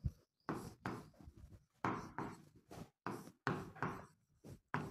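Pen writing on an interactive whiteboard screen: about a dozen short scratching strokes and taps in an uneven rhythm, with brief silences between them.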